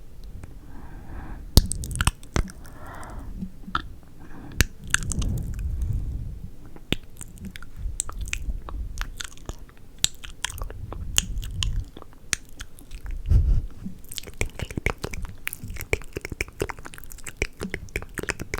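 ASMR mouth sounds right at the microphone: a dense, irregular run of wet clicks, smacks and pops.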